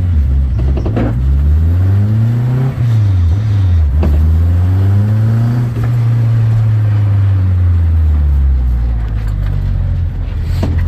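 Turbocharged Honda K20 four-cylinder revving: its note climbs, dips briefly, climbs again, then falls away and settles into a steady idle about eight seconds in. A few sharp clicks are heard along the way.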